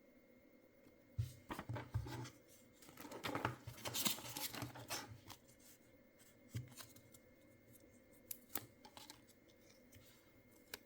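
Hands handling and opening packaging: crinkling, rustling and tearing with small clicks and taps, busiest in the first half and thinning to scattered clicks later.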